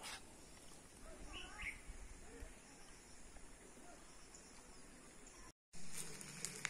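Faint outdoor ambience with a bird calling briefly, a short warbling call about a second and a half in. Near the end the sound drops out for a moment and gives way to a low steady hum.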